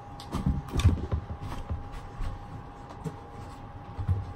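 Handling and rustling noises, with a cluster of soft knocks in the first second and a half and a low thump near the end, over a faint steady tone.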